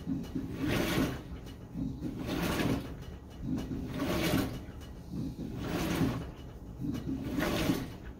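GE GTW720BSN0WS top-load washer agitating its load during the wash phase: a rhythmic swish-and-slosh of water and laundry about every second and a half as the washer drives the load back and forth, over a low motor hum.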